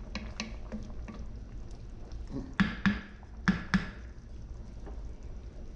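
Wooden spatula stirring beef and vegetables in a simmering enamelled cast iron pot: wet squishing with small ticks, and four sharper knocks of the spatula against the pot from about two and a half to four seconds in.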